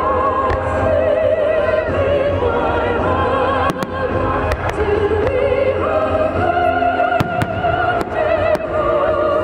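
Fireworks bursting with sharp bangs at irregular intervals, several close together in the second half, over loud operatic singing with vibrato and orchestral accompaniment.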